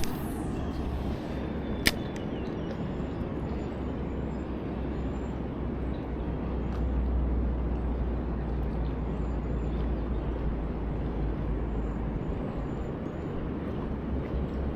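Steady rushing noise of flowing river water, with a low rumble underneath, likely wind on the microphone. A single sharp click about two seconds in.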